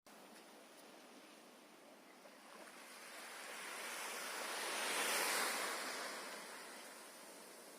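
Sea surf: a wave washes in, swelling to a peak about five seconds in and then fading.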